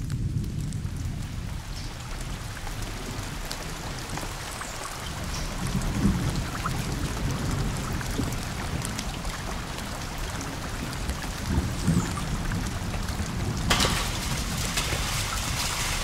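Steady rain falling on a forest, with low rolling thunder rumbling underneath. The rain gets louder and hissier near the end.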